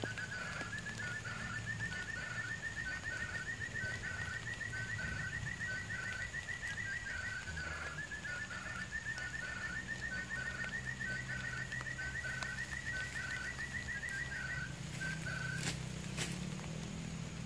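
Forest quail calling: a long trill of rapid notes that slowly rises in pitch, given twice in a row, with slower, lower notes beneath. Two sharp clicks come near the end.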